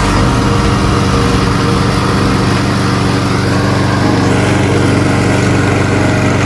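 Stiga Combi SQ 50 lawn mower's small petrol engine running at a steady speed.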